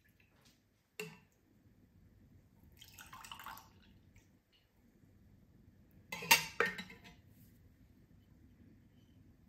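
Kombucha ladled into a wine glass: a thin trickle of liquid pouring for about a second, then, a few seconds later, two sharp glassy clinks close together, the loudest sounds. A small knock comes about a second in.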